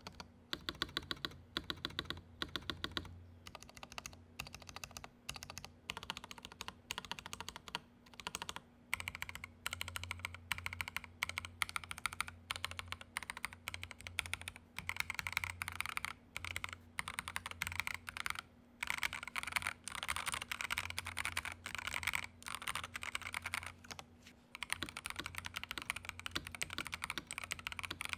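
Typing on a Feker IK75 gasket-mounted 75% mechanical keyboard with lubed MMD Cream linear switches in a steel plate: a continuous stream of keystroke clacks, irregular in pace, with quicker bursts of typing partway through and again later on.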